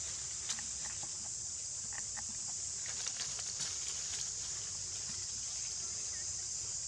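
Steady high-pitched drone of an insect chorus, with scattered crackles of dry leaves rustling as a newborn macaque moves its limbs in the leaf litter.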